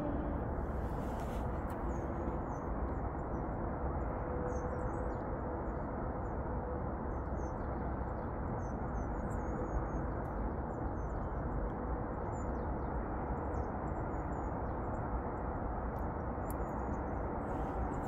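Many short, high chirps from small songbirds, scattered through, over a steady low background rush.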